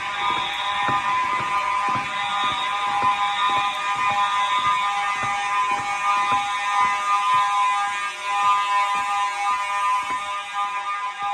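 Several fire alarm horns, older Simplex 4903 horn/strobes among them, sounding together in an alarm test. Their loud steady tones overlap, with some horns pulsing on and off and a buzzing rattle underneath.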